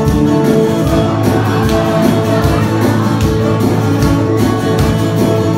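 Acoustic guitar strummed in a steady rhythm while a man sings along, played live through a PA.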